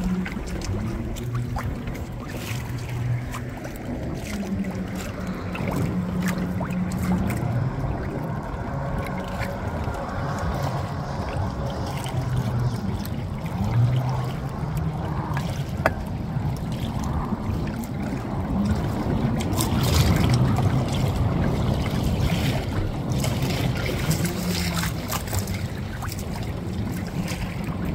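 Water lapping and splashing around a small boat, with a low motor hum that comes and goes.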